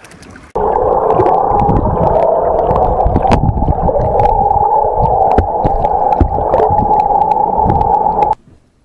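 Underwater sound from a submerged camera: a muffled rush of water with a steady drone and scattered clicks and knocks. It starts abruptly about half a second in and cuts off abruptly near the end.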